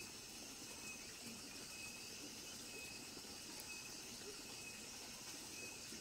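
Quiet, steady evening chorus of crickets and other insects, with one thin high trill that fades out midway and comes back near the end.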